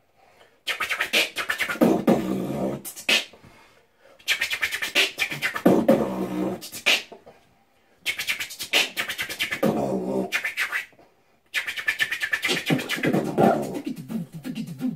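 Two people beatboxing back and forth as a conversation: four phrases of a few seconds each, dense with rapid clicks and pitched vocal sounds, with brief pauses between turns.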